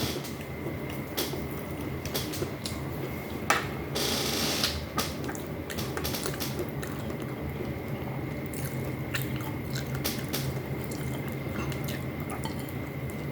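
Close-miked chewing and wet mouth sounds of someone eating braised fish and rice, with scattered sharp clicks and a brief noisier stretch about four seconds in. A steady background hum runs underneath.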